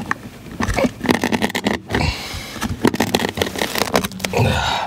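A knife slicing through carpet and its backing in a quick run of short rasping cuts, with the cut carpet pulled up near the end.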